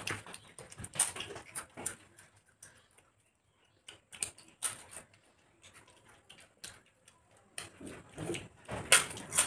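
Close-up eating sounds: crisp papad being bitten and crunched, with chewing and mouth clicks, in bursts of sharp crunches that are loudest near the end.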